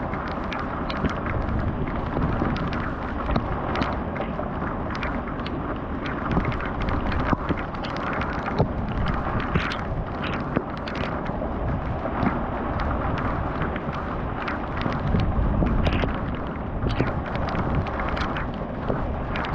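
Thunderstorm wind and rain: a steady rushing noise with heavy wind buffeting on the microphone, and many sharp taps scattered throughout.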